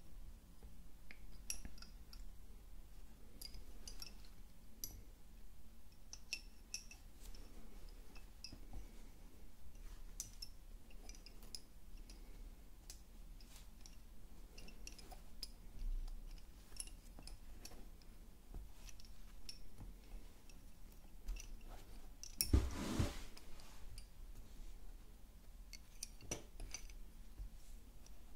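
Wooden lace bobbins clicking lightly against one another as pairs are picked up, crossed and twisted in Honiton bobbin lace, giving faint, irregular clicks. About three-quarters of the way through there is a brief, louder rustling noise.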